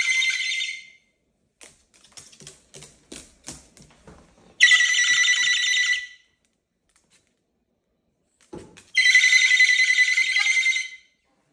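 Moluccan cockatoo screaming: three long, harsh, high calls, one fading out about a second in, another about five seconds in and a third near the end. Short clicks come between them.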